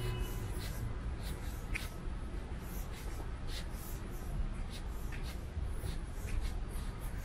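Footsteps scuffing on pavement at an uneven walking pace, over a steady low city rumble.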